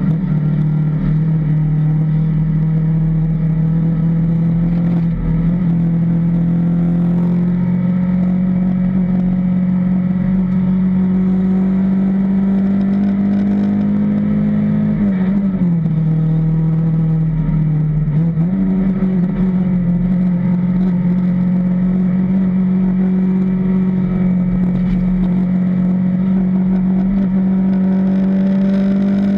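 Fiat Punto rally car's engine running hard under full throttle, heard from inside the stripped cockpit. The note climbs slowly, dips in pitch about halfway through, then rises again and holds high.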